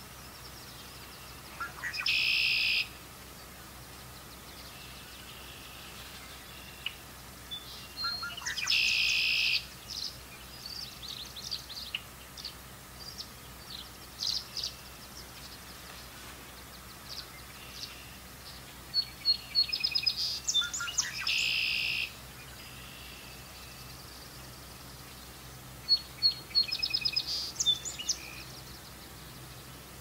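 Tree swallow twittering: runs of quick, high chirps broken by three buzzy notes, each about a second long.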